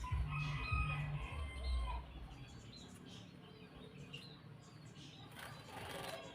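Birds calling with short whistled notes, over a low rumbling thumping that stops about two seconds in; near the end a rooster starts to crow.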